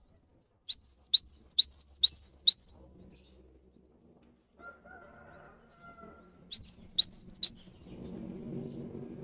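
Cinereous tit (gelatik batu) singing: two bright, high phrases of a quickly repeated two-note figure, about two and a half figures a second, the first lasting about two seconds and the second starting about six and a half seconds in.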